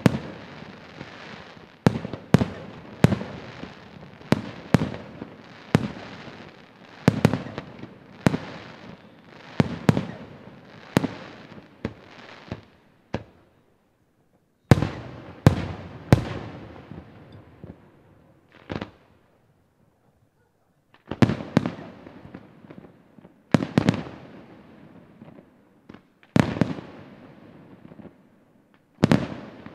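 Aerial firework shells bursting one after another: sharp booms, each trailing off in a rolling echo, coming several a second at first, with two short pauses about halfway through before the bursts resume.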